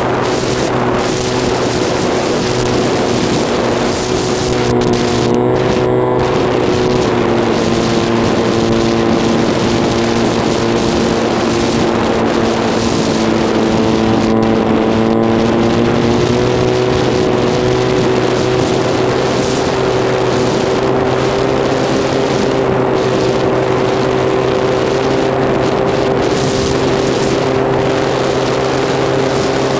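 Electric pusher motor and propeller of an EasyStar II model plane running steadily, heard from the plane itself, its pitch shifting a few times as the flight goes on. Wind rushes over the airframe throughout.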